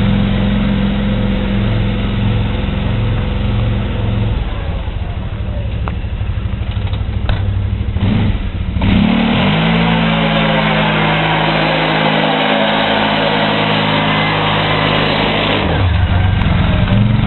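Arctic Cat TRV 1000 ATV's V-twin engine and exhaust running at low revs with a pulsing beat. About nine seconds in, the revs climb and are held high for several seconds, then drop back to a low, lumpy run near the end.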